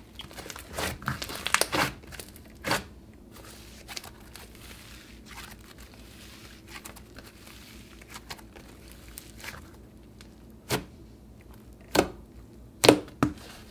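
Hands squishing, stretching and poking a pink snow-fizz slime: crackling and crinkling for the first few seconds, then quieter squishing, then four sharp pops near the end as fingers poke into it.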